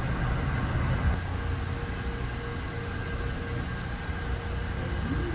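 Steady low mechanical rumble with a constant hum from running factory machinery.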